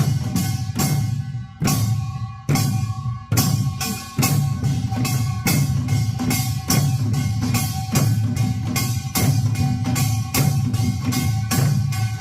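Korean buk barrel drums played in a Yeongnam nongak rhythm: a few widely spaced strokes, then, about three seconds in, a denser, faster pattern of several strokes a second.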